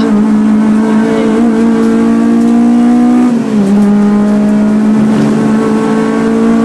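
A Honda's engine heard from inside the car at racing pace. Its note holds high and steady, dips sharply about three seconds in, then climbs gradually as the car accelerates out of the corner.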